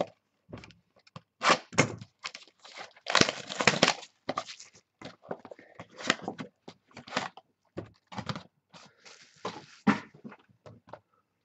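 Shrink-wrapped cardboard trading-card boxes handled and turned over in the hands, the plastic wrap crinkling in short irregular bursts, with knocks as a box is set down on the table.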